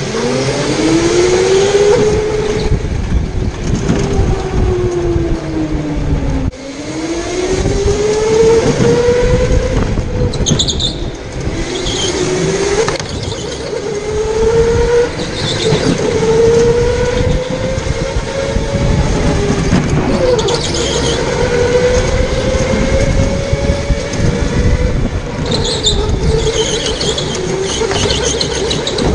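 Electric go-kart motor whining, its pitch climbing as the kart accelerates and falling back when it slows, over and over. The tyres squeal on the smooth concrete in several corners, the longest near the end.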